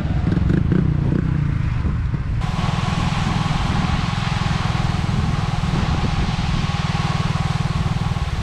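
Small scooter engine running while being ridden, a rapid low pulsing, with wind hiss on the microphone. About two seconds in, the sound changes abruptly to a louder hiss over the same engine pulse.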